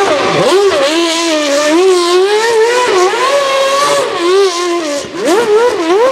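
A Formula 1 car's 2.4-litre V8 engine revving hard, with the pitch swinging up and down again and again as the throttle is blipped. It dips briefly about five seconds in, then flares up sharply twice.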